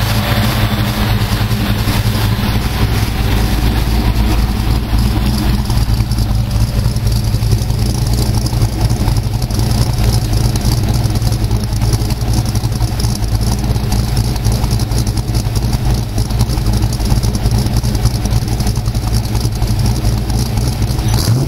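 Ford Racing 306 cubic-inch small-block V8 with an E303 cam idling steadily, its exhaust note heard at the tailpipe.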